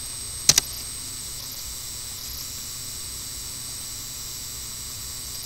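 Steady background hiss from the recording microphone, with two quick sharp clicks about half a second in.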